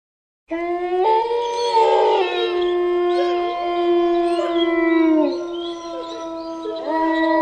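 Several wolves howling together: long, held howls overlapping at different pitches. Some slide down in pitch, and a new howl rises in near the end.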